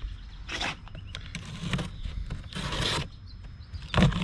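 Packing tape on a cardboard shipping box being slit and torn open: three short ripping sounds, the last about half a second long, then a few sharp knocks near the end as the box is handled.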